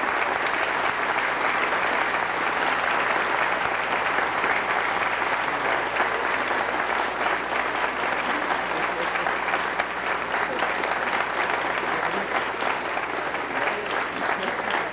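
Audience applauding steadily, a dense patter of many hands clapping that eases slightly in the last few seconds.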